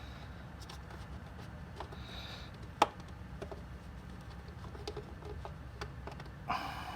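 Scattered small clicks and taps of hands and tools working plastic engine parts of a PCV oil separator housing, with one sharper click about three seconds in, over a low steady hum.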